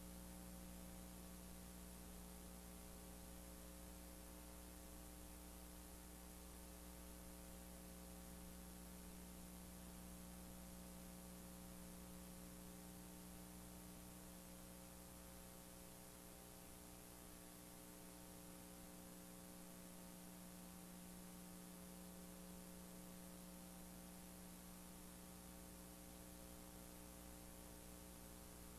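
Near silence: a faint steady electrical mains hum with a soft hiss underneath, unchanging throughout.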